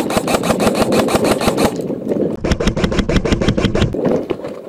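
Airsoft electric rifle firing two full-auto bursts, each about a second and a half long, at roughly ten shots a second with a short pause between.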